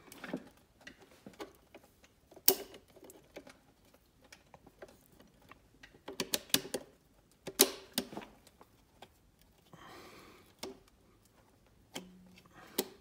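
Scattered sharp metallic clicks and clinks of steel automatic-transmission clutch parts being worked by hand into a 4L60E forward input drum, with a few louder knocks about two and a half, six to seven, and near eight seconds in.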